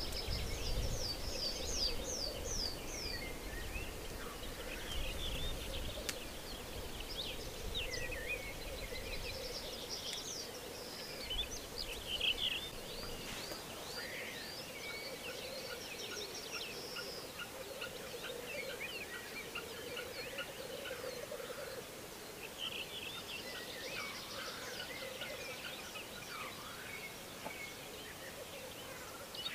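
Black grouse cocks lekking: a continuous bubbling, cooing rookoo chorus that wavers in pitch without a break. Small songbirds sing in short high phrases over it.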